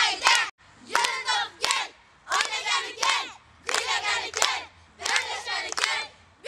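A group of children chanting together in short shouted phrases with brief pauses between them, clapping their hands along with the chant.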